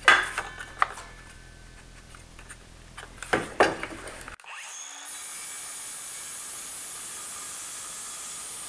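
A cordless circular saw is handled and set against a straight edge, with a few knocks. About four and a half seconds in it runs steadily as it rips along the board, heard mostly as an even high whine and hiss.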